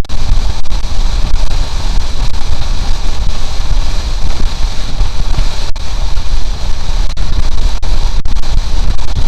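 Wind buffeting the microphone of a Honda CB750 motorcycle riding at road speed: a loud, steady, deep rumble with a hiss over it, and the engine buried in it.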